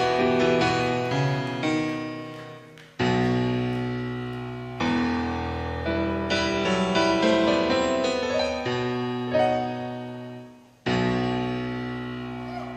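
Solo piano intro of a rock song, played live: slow chords struck and left to ring and fade, with higher notes and runs worked in between. Big new chords come in about three seconds in and again near the end.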